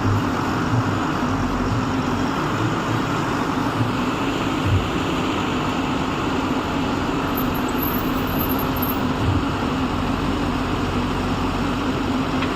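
ACE AX 124 backhoe loader's diesel engine running steadily, with a couple of short low thumps.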